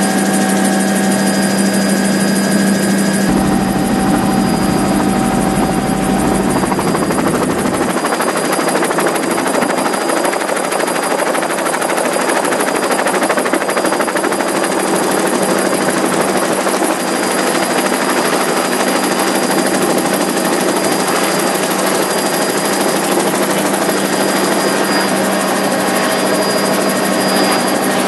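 Helicopter in flight, heard from inside the cabin: loud, steady engine and rotor noise with a constant low hum. A deeper low rumble comes in for a few seconds near the start.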